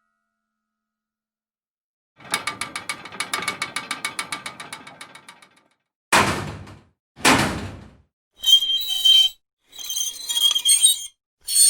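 Metal objects: a fast run of ratcheting metal clicks, about nine a second, fading out over some three seconds; then two heavy metal clanks a second apart; then four short bursts of metallic clinking and scraping with a ringing high edge.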